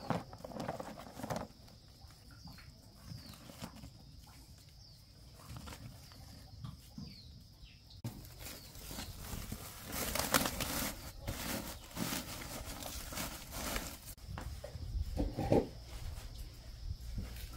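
Straw rustling and eggs clinking as they are gathered from a woven, straw-lined nest basket, with short, repeated chirps of birds.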